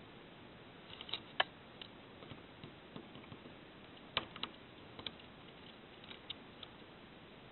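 Small metal pliers working at the wire leads of a resistor in a plastic drum-chip holder: a few scattered, faint, sharp clicks and snips, the loudest about a second and a half in and again about four seconds in.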